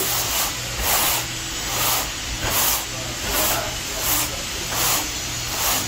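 Hissing that swells in regular puffs, about one every three-quarters of a second.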